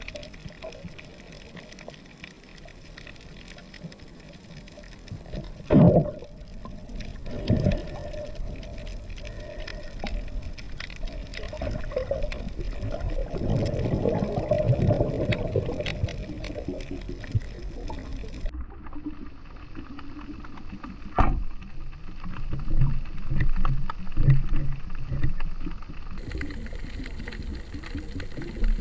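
Underwater sound heard through an action camera's waterproof housing: a steady rush of water with scattered crackling clicks. There are a few sharp, dull knocks, loudest about six seconds in and again near seven and a half and twenty-one seconds, and a louder stretch of gurgling water in the middle.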